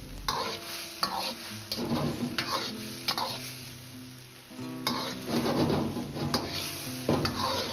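A ladle stirring and pushing tofu around a wok, scraping the metal in repeated short strokes, while the sauce sizzles as it reduces and thickens with cornstarch slurry.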